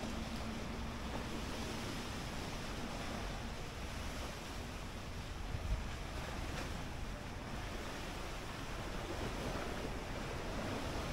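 Steady wash of small lake waves against the shore, mixed with wind on the microphone. A single soft bump comes a little past halfway.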